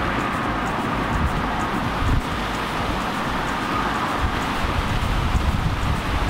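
Wind buffeting the microphone: a steady rushing noise with irregular low gusts.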